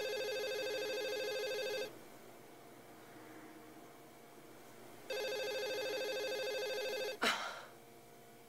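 A telephone ringing: two steady electronic rings of about two seconds each, about three seconds apart, followed right after the second ring by a short sharp noise.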